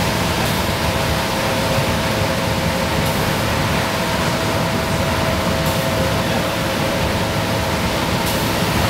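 Cabin sound of a 1994 Nova Bus Classic at highway speed: its Detroit Diesel 6V92TA two-stroke V6 diesel and Allison VR731-D transmission running steadily with a steady whine, under the hiss of tyres on the rain-soaked road. A faint swish from the windshield wipers comes about every two and a half seconds.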